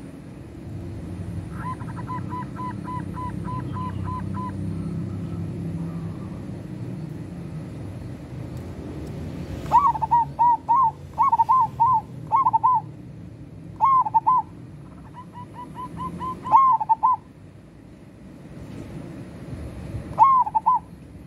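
Zebra dove (perkutut) cooing: a faint run of even notes early on, then from about ten seconds in several loud phrases of quick staccato coos, repeated a few times, the last near the end, over a steady low rumble.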